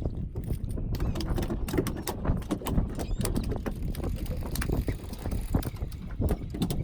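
Boat under way on open water: a steady low rumble of engine and hull with many irregular knocks and rattles.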